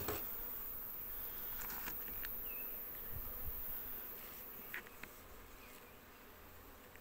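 Honeybees buzzing around an open hive, with a few light clicks from the hive being handled.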